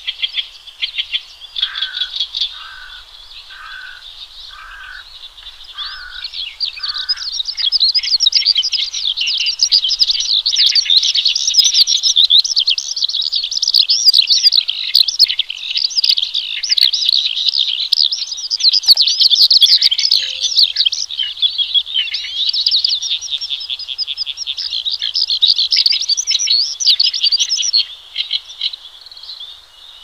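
Horsfield's bush lark (branjangan) singing a rapid, dense, non-stop song of high, varied notes. In the first seven seconds the song is quieter, with a row of about six lower, evenly spaced notes beneath it; from about eight seconds it turns loud and tightly packed, easing near the end.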